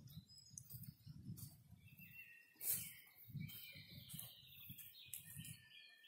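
Footsteps on a soft forest dirt track, with a sharp click a little under three seconds in. A songbird sings a run of high whistled notes from about two seconds in.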